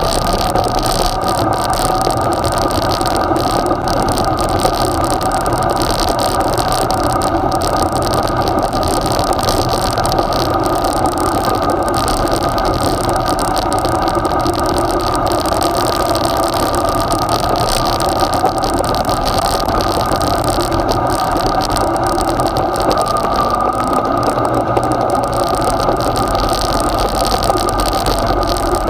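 Yamaha XJ6's inline-four engine running at steady revs under way, heard from on the bike, with wind and road noise.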